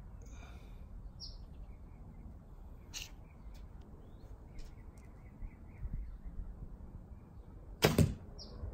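Shot from a 64-inch Junxing Pharos II F261 recurve bow fitted with string silencers: a short, sharp double snap near the end as the string is released. A bird chirps briefly twice over steady outdoor background noise.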